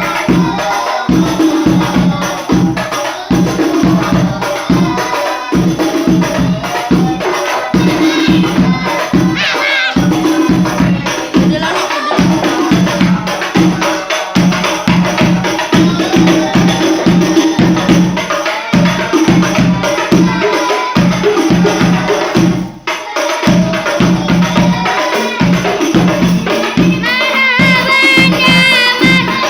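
Sholawatan rebana ensemble: hand-struck frame drums playing a fast, even interlocking rhythm with a jingling tambourine-like layer, dropping out for a moment about three-quarters of the way through. A voice begins singing near the end.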